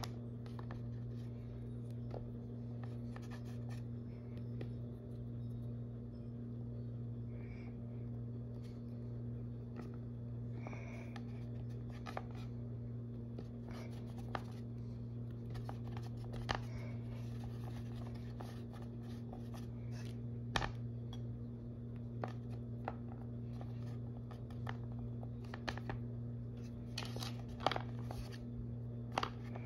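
Small scratches, scrapes and taps of sculpting tools working Sculpey polymer clay, scattered irregularly over a steady low hum.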